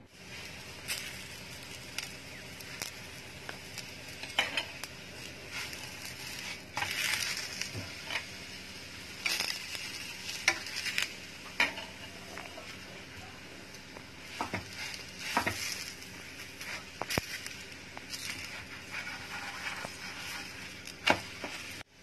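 Stuffed radish paratha sizzling in oil in a non-stick frying pan, with a spatula scraping, pressing and tapping on it at irregular intervals; one sharp tap near the end.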